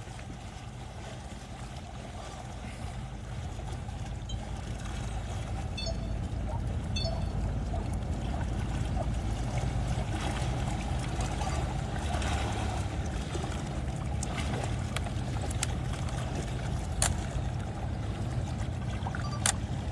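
Small waves lapping and splashing against shoreline rocks over a steady low rumble, growing a little louder through the first half, with a couple of sharp ticks near the end.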